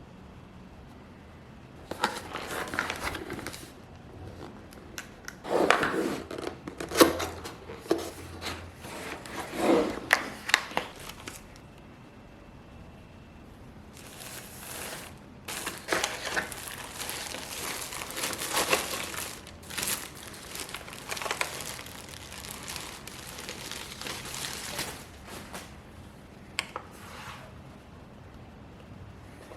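Packaging being handled during a keyboard unboxing: crinkling and rustling wrapping with a few sharp clicks. It comes in irregular bursts with quiet gaps between them.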